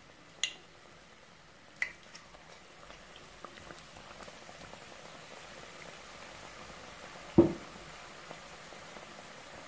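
Hot oil sizzling and crackling around batter-coated sandwich pakora deep-frying in a steel pot, the crackle building a few seconds in as a second piece is lowered into the oil. Two sharp clicks early on and one louder thump about three-quarters of the way through.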